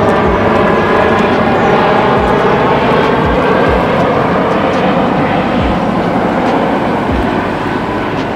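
Airbus A319 twin jet engines on final approach, passing low overhead with the gear down. A loud steady roar carries a whine of several tones and slowly fades in the second half, with a few low bumps on the microphone.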